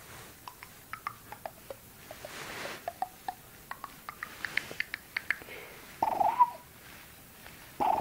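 A dog whining at a toy: a short pitched whine about six seconds in and another near the end, with quick, faint, high squeaks and ticks before them.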